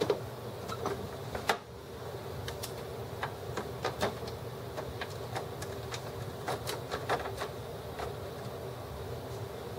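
Plastic clicks and snaps from the HP Officejet R80's casing being handled and pried apart, irregular, the sharpest at the very start and about a second and a half in, over a steady low hum.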